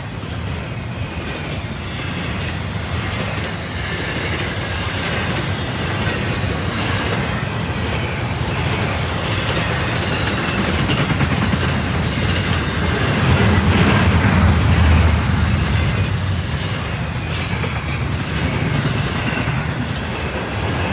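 Norfolk Southern freight train rolling past, with a steady rumble and rattle of wheels on rail, swelling in the middle, and faint high wheel squeals a few times.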